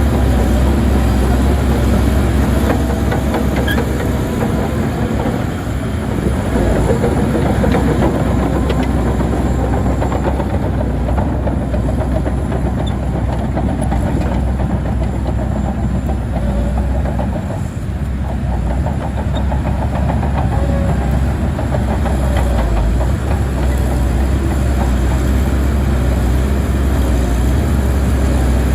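Heavy diesel earth-moving machinery running steadily, with a deep engine drone and a dense clatter, easing off briefly twice.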